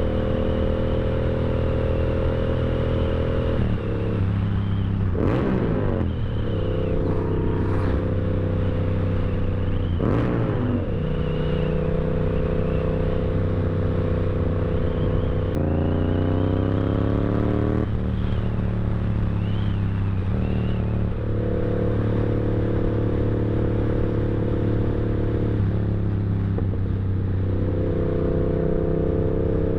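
Yamaha R7 motorcycle engine running under way, holding a steady note for long stretches and changing pitch with the throttle and gear changes. About halfway through it rises in pitch as it accelerates.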